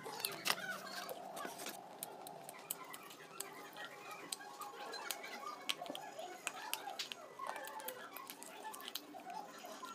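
King Gold brand slate pencil being bitten and chewed: a run of sharp, irregular crisp cracks and crunches.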